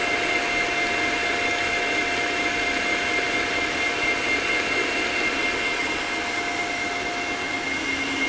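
Electric stand mixer running at a steady speed with an even motor whine, its beater working butter, sugar, eggs and strawberry liqueur into a batter.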